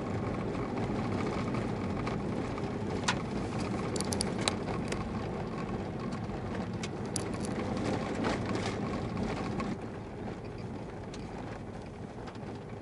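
Car driving on an unsealed sandy gravel road, heard from inside the cabin: steady tyre and engine noise with scattered sharp ticks, easing a little about ten seconds in.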